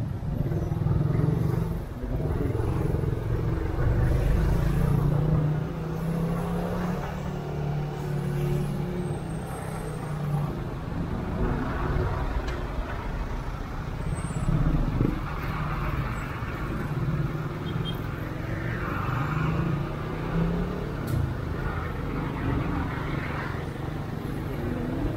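Motorcycle engine running at low speed in congested traffic, its note shifting up and down with the throttle, with the engine and road noise of trucks and a bus close alongside.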